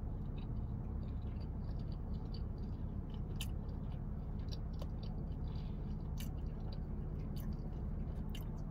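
A person chewing a mouthful of bacon burger close to the microphone, with scattered small mouth clicks over a steady low hum.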